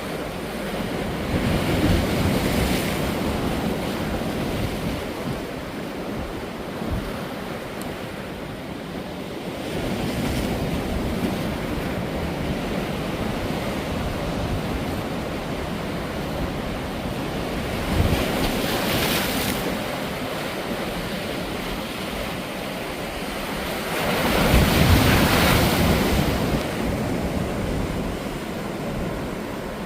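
High sea surf breaking on a sandy beach, a continuous wash of noise that swells with each breaking wave, about four times. The biggest break comes a little past two-thirds of the way in.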